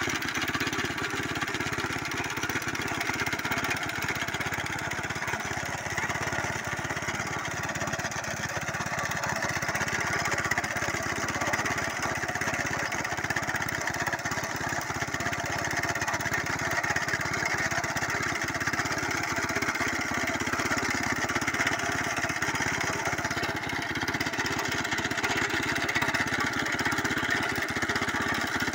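Rasant walk-behind sickle-bar mower's engine running steadily under load as the mower cuts tall grass, with a rapid, even firing pulse.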